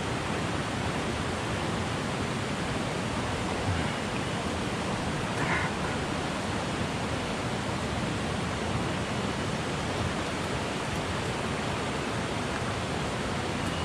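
Fast river water rushing over stones: a steady, even hiss that never lets up.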